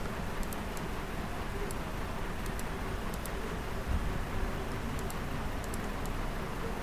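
Steady background hiss and low hum of a home recording setup, with faint light clicks scattered through, several in quick pairs.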